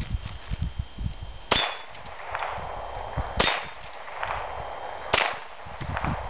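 Three shots from a Ruger Mark III Target .22 LR pistol, each a sharp crack with a short ringing tail, spaced about two seconds apart.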